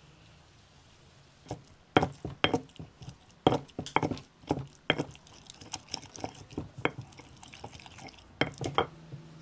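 Stone pestle pounding a wet green herb paste in a heavy stone mortar: repeated irregular knocks starting about a second and a half in, lighter through the middle, with a few harder strikes near the end.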